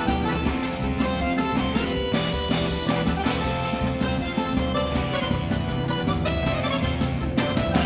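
Instrumental music with a steady beat, the accompaniment to a quadrilha junina dance.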